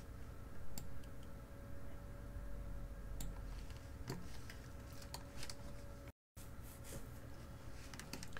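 Sparse, faint clicks of a computer mouse and keyboard in use, several spread across the stretch, over a steady faint room hum. The sound drops out completely for a moment a little after six seconds in.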